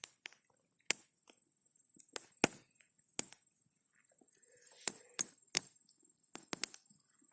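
Wood campfire crackling: about a dozen sharp, irregular pops and cracks.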